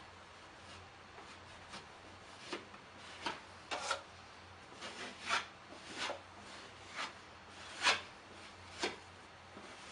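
Drywall knife scraping thin joint compound across a drywall patch in about ten short, irregularly spaced strokes.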